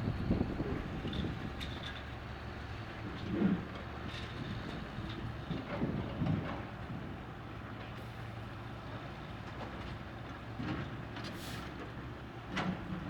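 Heavy construction machine's engine running steadily, with several short clanks and knocks scattered through it, the loudest about three and a half seconds in and near the end.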